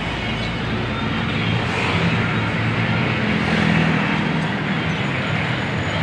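Steady road traffic noise with the low hum of engines running.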